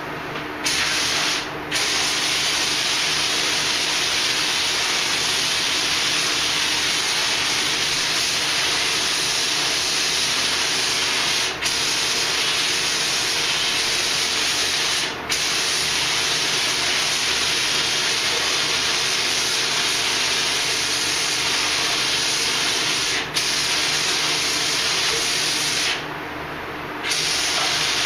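Air paint spray gun hissing steadily as it sprays green paint. The hiss is broken by a few short gaps where the trigger is let go between passes, and a longer pause near the end, over a steady low hum.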